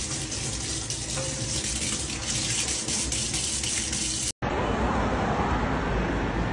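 Kitchen tap running a steady stream of water into a stainless-steel sink. About four seconds in it cuts off suddenly and gives way to a duller steady outdoor background noise.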